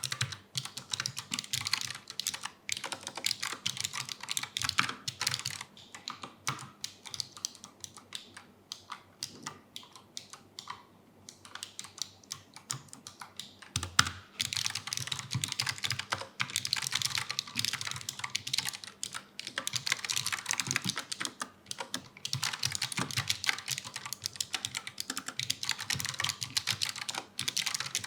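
Typing on a Gconic A75 low-profile mechanical keyboard with Brown tactile switches: a fast, continuous run of key clacks, thinning out for a few seconds in the middle, with one louder knock about halfway through.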